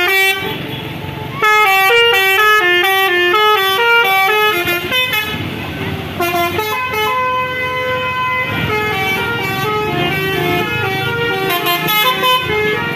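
Basuri telolet bus horns playing quick melodic tunes. A fast run of stepped notes starts about a second and a half in, and from about six seconds several horns sound their tunes over each other.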